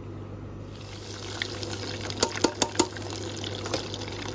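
Panko-breaded chicken breast deep-frying in peanut oil at 160 °C: a steady sizzle that starts under a second in, with a quick run of four sharp pops and crackles a little over two seconds in.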